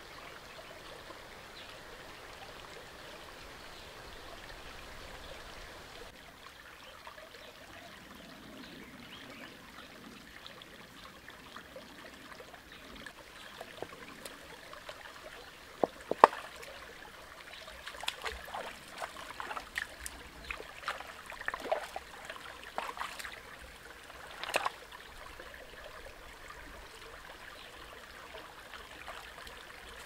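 Shallow rocky stream running steadily. About halfway through comes a run of sharp knocks and splashes lasting several seconds, the loudest at its start.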